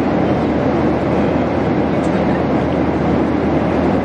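Steady airliner cabin noise in flight: the even rush of engines and air around the fuselage, heaviest in the low range.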